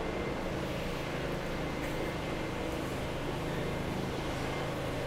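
Steady city street background noise: a low, even hum of distant traffic.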